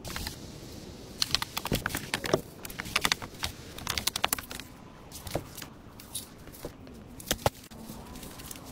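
Dry wooden sticks and branches clacking and snapping as they are handled: an irregular run of sharp cracks and knocks, thickest in the first half, then a few single knocks.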